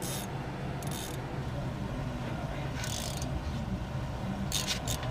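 Short metallic scrapes and clinks of a hand tool working at the triple-square hub bolts, four brief ones over a steady low hum.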